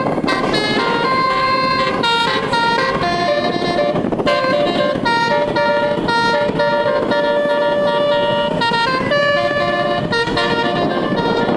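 Indonesian 'telolet' multi-tone bus horn, all its tones switched on, playing a tune of short and held notes that step up and down in pitch.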